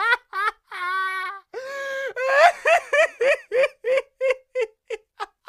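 A high-pitched voice making quick repeated syllables, about three a second, broken by two held wailing notes, then dying away.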